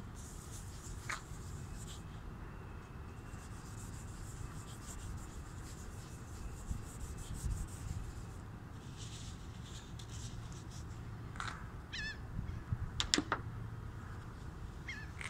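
A bare hand rubbing polish over a plastic car headlight lens: faint swishing strokes over a steady low rumble, with a few short, high, sliding squeaks near the end.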